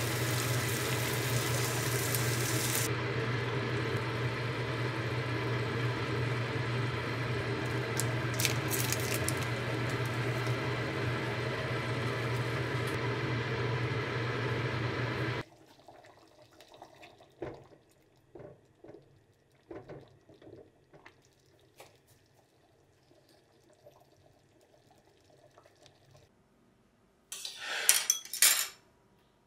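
Onions sizzling in a wok, then thick curry bubbling in the pan, over a steady low hum. About halfway through the sound cuts off abruptly to quiet, with light clinks of tableware and a louder clatter of wooden chopsticks and dishes near the end.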